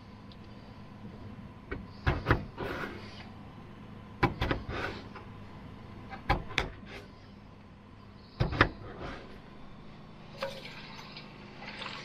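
Kitchen knife slicing through a raw potato and knocking down onto a wooden cutting board: four quick double knocks about two seconds apart, each followed by a short scrape.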